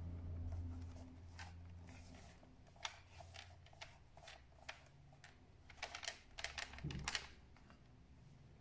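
Scattered light clicks and taps of small hard objects being handled, bunched together about six to seven seconds in, over a low hum that fades away in the first two seconds.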